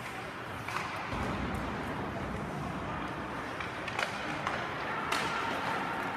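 Ice hockey play in an arena: sticks and puck clacking, with several sharp knocks, over steady rink noise and faint distant voices.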